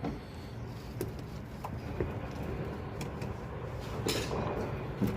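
A few light clicks and knocks of objects being handled, over a steady low hum, with a short louder scrape or rustle about four seconds in.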